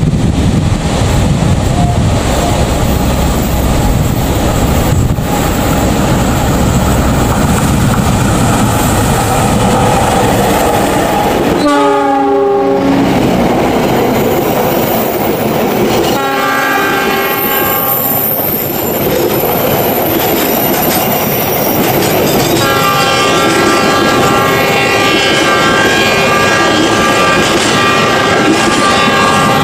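Diesel-electric locomotive approaching and passing with its engine running, sounding a short horn blast about twelve seconds in. Then the passenger coaches roll past on the curve, with wheels clicking over the rail joints and a steady high squeal from the wheels on the bend.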